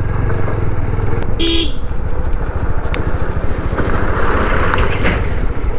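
Single-cylinder TVS Apache RTR 160 BS6 engine running steadily at low speed on a rough gravel track. One short horn toot about a second and a half in, then a truck passes close by.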